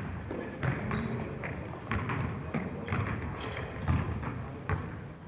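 A basketball thudding on a gym's hardwood floor as it is dribbled and passed, with brief high squeaks of sneakers on the court, in a large echoing gym.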